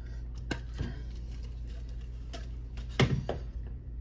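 Scattered light clicks and taps of trading cards being handled and set down on a table, the sharpest pair about three seconds in, over a steady low hum.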